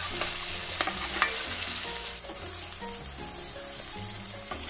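Chopped onions and tomatoes sizzling in oil in a kadhai while a spoon stirs them, with a few sharp knocks and scrapes of the spoon on the pan. The sizzle is loud at first and drops away about two seconds in: the tomatoes are cooking down until soft.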